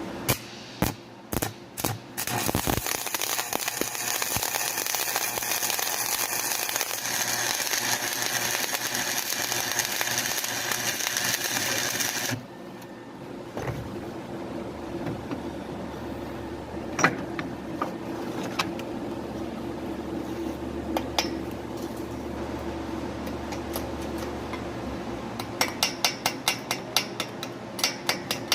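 Stick-welding arc from a 6013 electrode crackling and hissing steadily for about ten seconds on a flange weld, then cutting off suddenly. A steady low hum runs underneath. Near the end comes a quick run of sharp metallic taps, about four a second.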